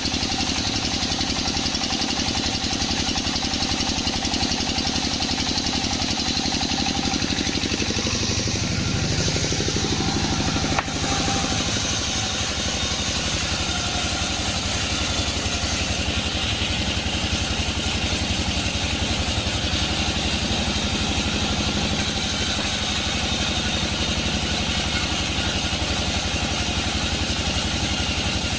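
Sawmill machinery running steadily with an engine-like drone. The sound shifts briefly about eight to ten seconds in, with a sharp click near eleven seconds.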